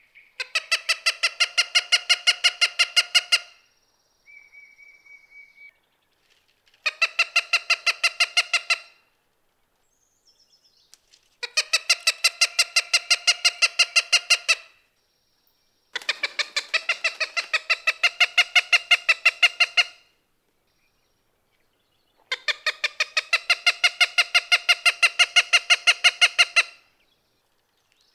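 Cooper's Hawk giving its loud, piercing 'kac-kac-kac' call: five long runs of rapid, evenly repeated harsh notes, each run lasting a few seconds with short pauses between runs. This is the species' most common call, used in courtship and in defence of the nest.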